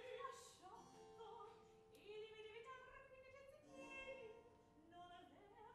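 Opera singing, faint, with a small classical orchestra accompanying: sustained sung notes in slowly moving phrases.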